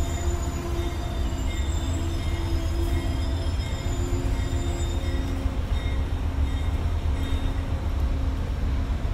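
Amtrak passenger train rolling slowly to a stop beside the platform: a constant low rumble with a steady squeal of brakes and wheels that fades away about halfway through as the train halts.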